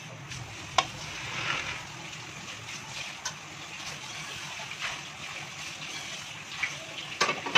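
Steady hiss with a few light clicks and taps from a spoon and fingers handling the chicken filling and momo dough; the sharpest click comes about a second in and another near the end.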